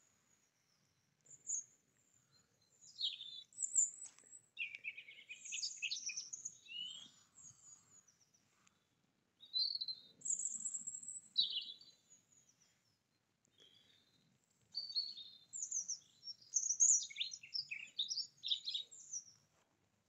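Songbirds singing: quick, high chirping phrases in three bouts with short gaps between.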